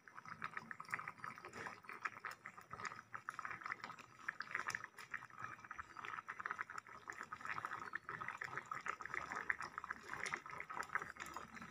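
Ash plantain curry in thick coconut milk simmering in the pot, a faint, steady crackle of many small bubbles popping.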